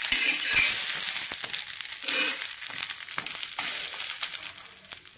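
Ghee sizzling and crackling on a hot iron tawa under a filled roti, with light clicks and scrapes as the roll is folded over on the pan. The sizzle fades toward the end.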